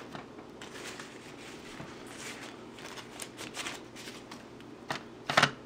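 Raw tilapia fillets being pushed and slid around by hand in a disposable aluminium foil pan: soft scattered rustles and crinkles of the thin foil, with a louder burst of crinkling near the end.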